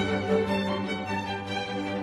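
Background music with bowed strings such as violin and cello, at a steady moderate level.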